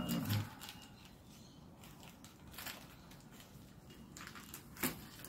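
A packet being cut and pulled open with a hobby knife: faint crinkling and scraping of the packaging, with a sharper crackle near the end. A short low hum from a man's voice is heard at the very start.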